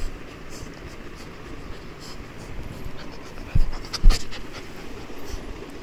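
Rottweiler puppy panting, with two loud thumps about three and a half and four seconds in as the puppy knocks against the phone.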